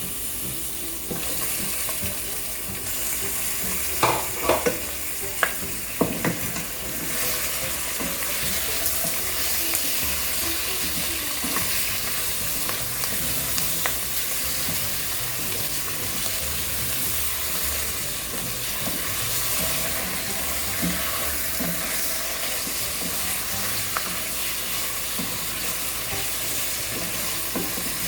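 Chicken pieces frying in hot oil with softened onions in a kadai: a steady sizzle. A few knocks come about four to six seconds in.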